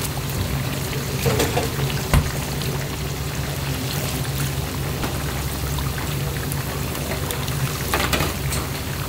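Water running in a restaurant kitchen over a steady low hum, with a sharp knock about two seconds in and a few lighter clatters.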